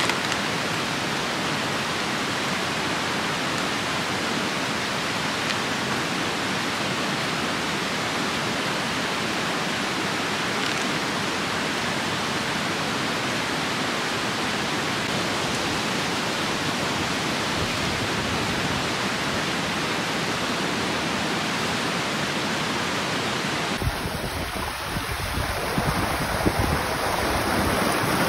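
Strong wind making a steady rushing hiss; about 24 s in it changes suddenly to gusty wind buffeting the microphone with a low rumble.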